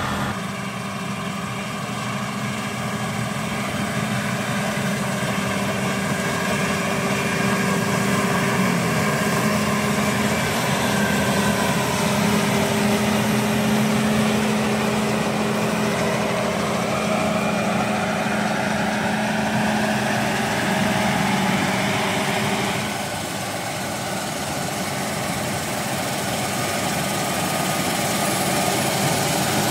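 Combine harvester running steadily, engine and threshing machinery humming under load, with slow shifts in pitch and a slight drop in level about two-thirds of the way through.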